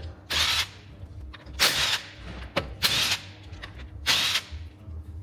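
Impact wrench hammering off the wheel nuts of a Tesla Model 3 with a 21 mm socket, in four short bursts about a second apart.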